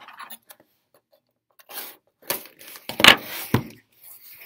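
Cardboard shipping box being opened by hand: rustling and scraping of the cardboard flaps, loudest about three seconds in, with two sharp knocks.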